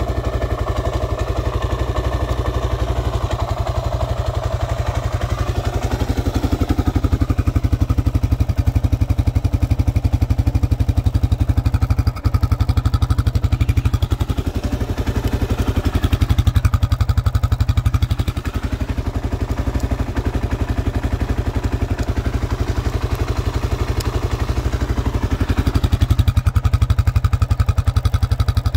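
1995 Suzuki DR650SE's single-cylinder four-stroke engine idling steadily, a little louder in the last few seconds.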